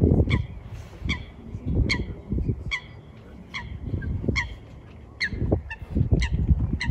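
A flock of waterfowl honking: short, sharp, repeated calls coming every half second to a second. Low irregular rumbling noise runs underneath.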